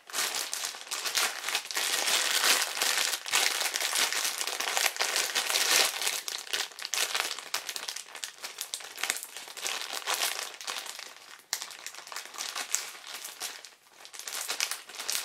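Plastic wrapping crinkling and crackling as a laptop's power cords are unwrapped by hand, easing off briefly near the end.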